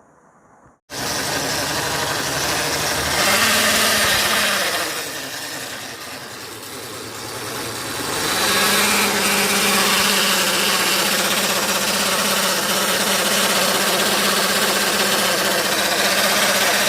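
Hero Duet scooter's single-cylinder engine running with an abnormal noise from the clutch side, which the mechanic traces to the engine-cooling fan's loose nut. It comes in suddenly about a second in, dips for a few seconds in the middle, then runs steadily.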